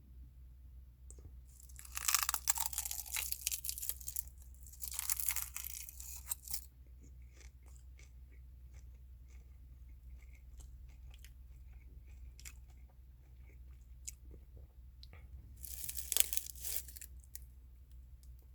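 Close-up chewing and crunching of food in the mouth, in three loud crunchy stretches, about two seconds in, about five seconds in and near the end, with soft mouth clicks between them.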